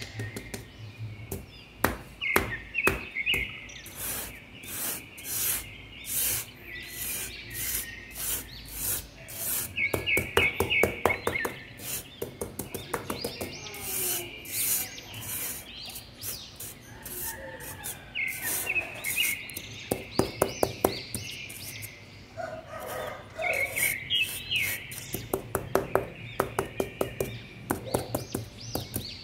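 Birds chirping throughout, with quick runs of sharp chirps and short warbled phrases that come back every several seconds.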